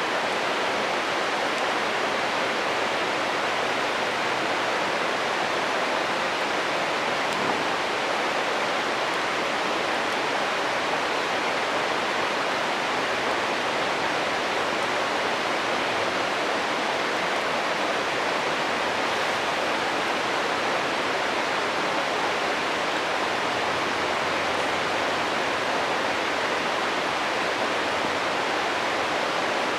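A stream rushing and babbling steadily, a continuous even wash of flowing water.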